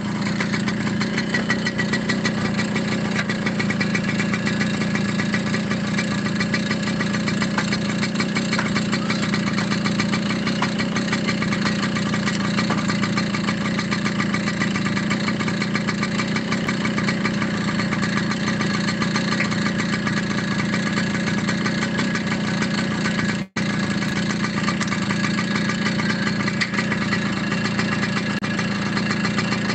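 Motorcycle engine idling steadily, with a momentary gap in the sound about 23 seconds in.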